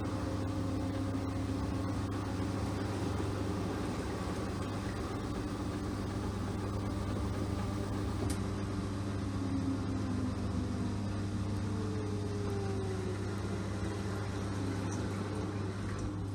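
LG 6.5 kg front-loading washing machine running partway through its cycle with a steady hum and a wash of water and motor noise.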